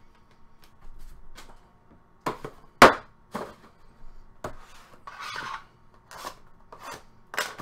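Hands handling trading cards and a cardboard card box on a wooden tabletop: a string of irregular knocks and taps, the loudest a sharp knock about three seconds in, with a brief scraping rub of cardboard on the table around five seconds in.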